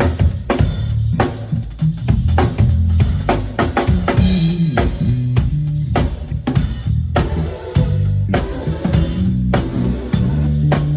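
Drum kit played in a steady groove during a sound check: kick, snare and rimshot strokes at a quick, even rhythm over a low bass line that moves between notes.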